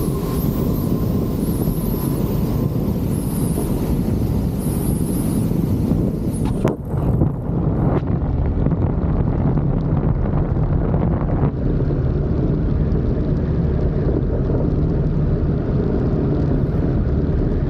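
Piper J3 Cub's 65-horsepower engine running steadily, with heavy wind rush on the microphone, during a bounced landing and go-around. The sound breaks briefly about seven seconds in.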